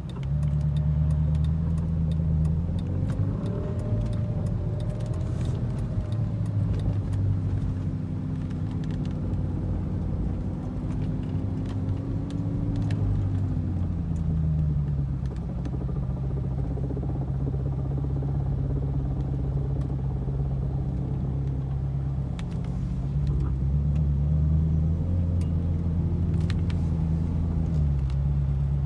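Ferrari 458 Italia's V8 running at low speed, its note stepping up and down between two pitches several times, with a fainter higher tone wavering above it for stretches.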